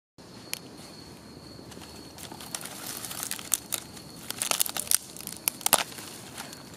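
Small wood fire crackling in a TOAKS backpacking wood-burning stove: irregular sharp pops and snaps, coming thicker in the middle, over a low steady hiss.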